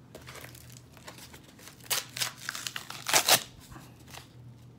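Cardboard shipping mailer being torn open by hand: a few short rips and crinkles, the loudest just over three seconds in.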